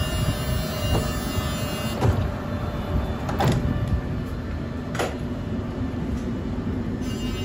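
Steady low hum of a stationary Bombardier TVR guided tram's onboard equipment, heard inside the cabin with the doors open. Four scattered knocks sound over it.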